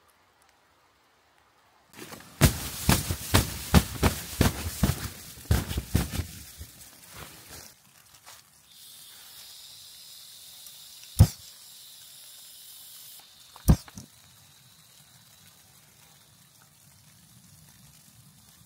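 About five seconds of loud, irregular knocking and crunching handling noise. Then the steady hiss of gas flowing from a canister stove and two sharp igniter clicks a couple of seconds apart. After the second click the lit burner gives a low, steady rush.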